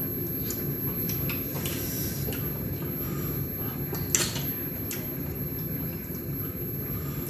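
Light clicks and knocks of bowls and eating at a table over a steady low hum, the sharpest click about four seconds in.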